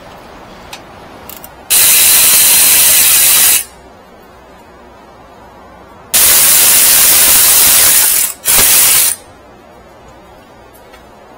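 Three bursts of loud hissing compressed air: two lasting about two seconds each, and a short half-second one just after the second, each cutting in and out sharply.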